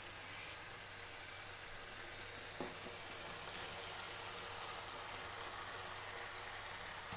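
Chicken mince and capsicum sauce sizzling steadily in a frying pan on the stove, with one soft tap about two and a half seconds in.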